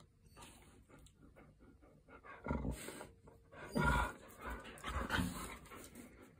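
A Belgian Sheepdog "talking": three short vocal sounds about a second and a bit apart, starting about two and a half seconds in.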